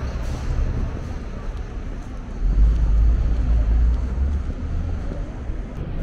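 City street traffic noise under an elevated rail line. A deeper low rumble swells about two and a half seconds in and eases off about two seconds later.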